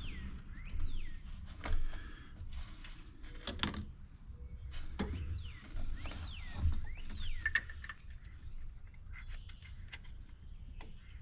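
Birds chirping repeatedly in short falling calls, with a few sharp clicks and knocks from hand work as a MAP sensor is fitted to an engine.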